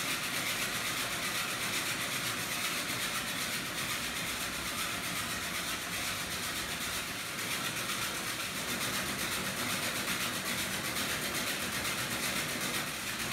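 Steady mechanical drone of bakery machinery running, even and unbroken throughout.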